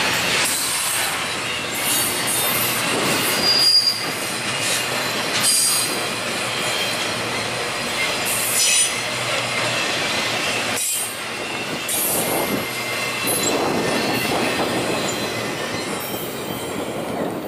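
Cars of an intermodal freight train rolling by: the steady rumble and clatter of steel wheels on rail, with a few short, high wheel squeals. The sound drops a little near the end as the last car passes.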